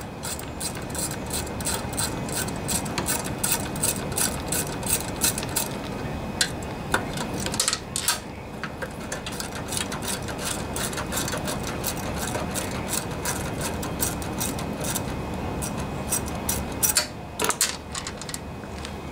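Craftsman socket ratchet clicking in quick, even runs of several clicks a second as an engine cover mounting bolt is backed out, with a few louder knocks of the tool between runs.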